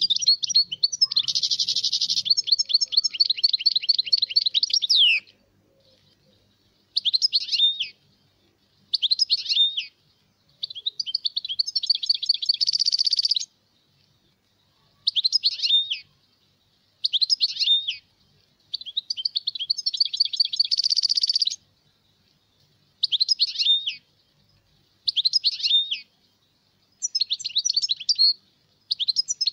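European goldfinch singing, with bright twittering phrases and rapid trills. The song runs continuously at first, then comes in repeated one- to two-second phrases with short pauses between them. It is a song recording played to tutor young goldfinches.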